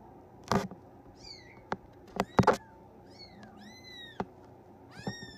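A three-week-old Bengal kitten mewing, about four high, thin mews that rise and fall in pitch. Several sharp knocks, the loudest sounds in the clip, come about half a second in and around two and a half seconds in.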